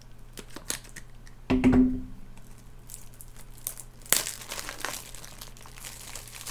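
Plastic packaging crinkling and rustling as Blu-ray cases are handled, with scattered clicks and one louder low thump about one and a half seconds in.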